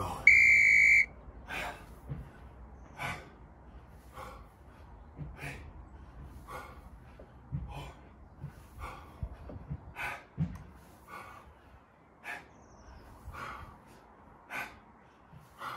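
A workout interval timer beeps once, a loud high steady tone lasting under a second. After it a man breathes out hard with each single-arm dumbbell snatch, a short puff about every second and a half.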